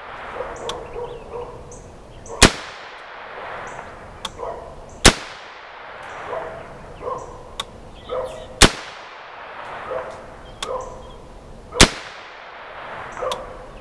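Savage A17 semi-automatic 17 HMR rimfire rifle firing four slow, single aimed shots about three seconds apart, each sharp crack trailing off in an echo.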